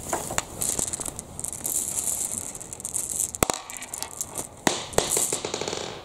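Small marbles rattling and clicking together in a drawstring pouch as it is opened and they are tipped out into a hand, over the crinkle of the pouch's gold foil fabric. There are two sharp clicks near the middle and a quick run of small clicks near the end.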